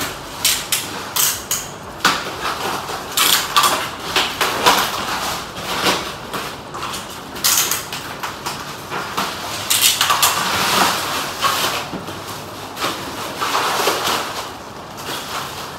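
Bubble wrap being cut open and pulled off a cardboard box: irregular crinkling and rustling of plastic, with short sharp scrapes.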